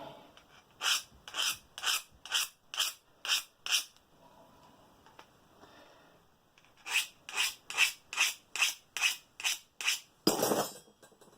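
Steel scissor blade rasped against a chrome-plated hand tool to sharpen it, raising and shearing a burr on the edge. Short rasping strokes come about two a second in two runs, with a pause of a few seconds between them and one longer stroke near the end.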